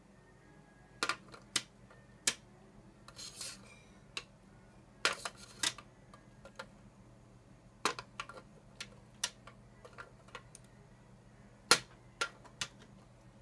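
Irregular light clicks and knocks, a dozen or so spread unevenly, with a brief scrape about three seconds in and the sharpest click near the end.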